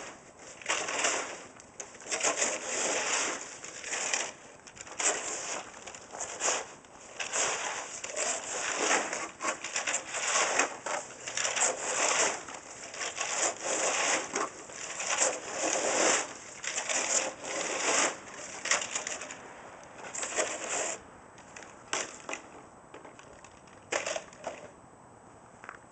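Spring-loaded snow shovel scraping and crunching through crusty, icy snow in repeated strokes about once a second, thinning out over the last few seconds.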